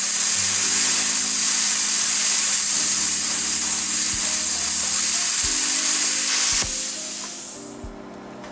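Vevor CUT-50P plasma cutter arc cutting through half-inch steel plate: a loud, steady hiss. About six and a half seconds in the arc stops, and the hiss drops sharply and trails away over the next second.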